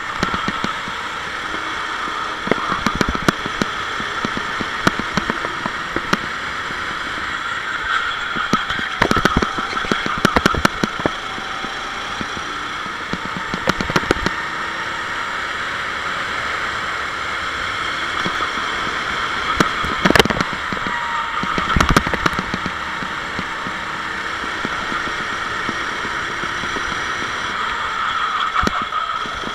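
Onboard sound of a Sodi SR4 rental kart's four-stroke engine running at racing speed, with scattered sharp knocks from the kart over the track.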